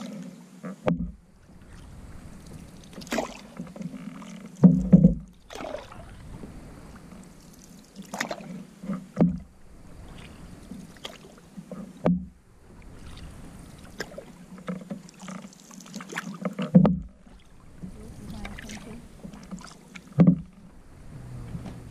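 Canoe paddling on a river: paddles dipping and pulling through the water, with a splash or knock of a paddle every few seconds over the steady wash of water along the hull.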